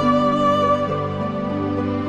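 Slow instrumental background music, with held notes that change every half second or so.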